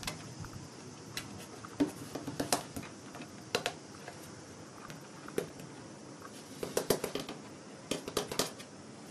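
Irregular light taps and scratches on a wooden tabletop from a hand playing with a Bengal cat's paws, in quick clusters of several clicks.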